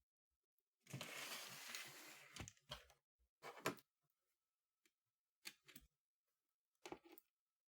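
A dry scraping rasp lasting about a second and a half, followed by several light clicks and taps spaced irregularly, like small parts being handled on a bench. No lathe motor is running.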